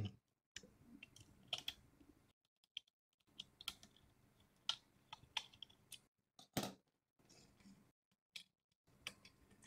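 Faint, irregular clicks and taps from handling the small plastic parts and screws of a light meter as its sensor board is unscrewed and lifted out of the housing. The sharpest clicks come a little before the middle and about two-thirds of the way through.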